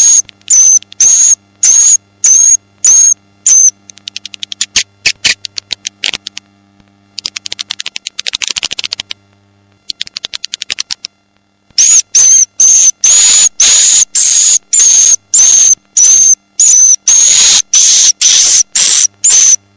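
Swiftlet lure call ('suara tarik'), the recorded calls played at swiftlet houses to draw the birds in: sharp, high chirps about twice a second, then a run of rapid clicking twitters in the middle, a short pause, and the chirps again from about twelve seconds in.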